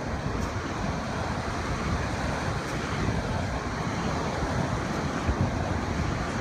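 Small ocean waves washing onto the beach in a steady rush, with wind buffeting the microphone in a low rumble.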